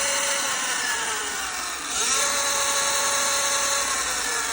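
Sur-Ron electric dirt bike motor whining as the throttle is twisted. The pitch falls away early on, rises again about two seconds in, holds steady, then starts to drop near the end.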